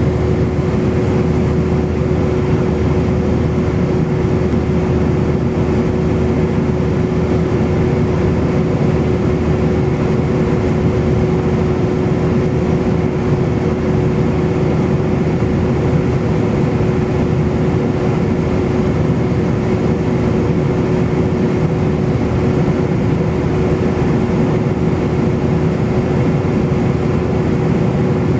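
Cabin noise of an Airbus airliner in cruise, heard inside the cabin beside the wing engine: a loud, steady rush of air and engine drone with one steady humming tone.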